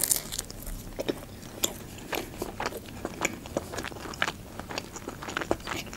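A person chewing a mouthful of Adjarian khachapuri, cheese-filled bread: a run of many small, wet mouth clicks and smacks, with a sharper click as the piece goes into the mouth right at the start.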